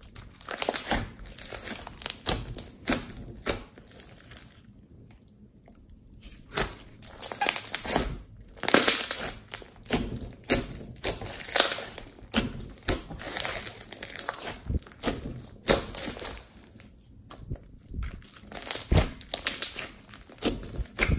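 Hands squishing and kneading glossy slime mixed with foam beads: irregular wet crackles and pops of air squeezed through the slime, pausing briefly about five seconds in and again near the end.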